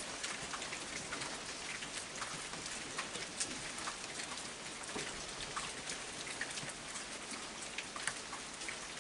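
Heavy rain falling steadily: a constant hiss dotted with the sharp ticks of single drops.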